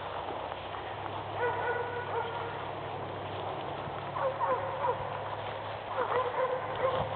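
Short animal calls that slide in pitch, coming in small clusters about a second in and again from about four seconds on, over a low steady hum.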